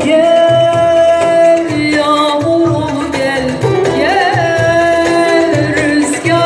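Live Turkish song: a woman singing long held, wavering notes over electronic keyboard accompaniment with a steady hand-drum rhythm.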